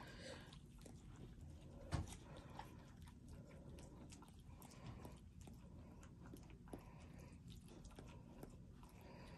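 Mother dog licking and nibbling her newborn puppy: faint, irregular wet mouth clicks and smacks, with one louder knock about two seconds in.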